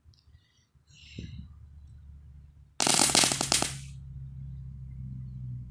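A firework going off in a rapid string of sharp crackling pops lasting about a second, about three seconds in, followed by a steady low hum.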